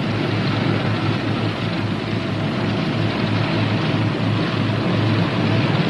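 The twin Pratt & Whitney R-2800 radial engines of a Northrop P-61 Black Widow running steadily at low speed on the ground, warming up after start.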